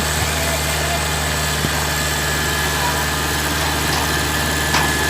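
Diesel engine of farm machinery running at a steady idle, with a low, even drone and no change in speed.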